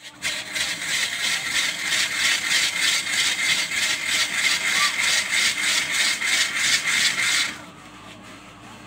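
Hand-cranked ice-shaving machine shaving a block of ice into crushed ice: a loud, rhythmic rasping of about four strokes a second that stops suddenly about seven and a half seconds in.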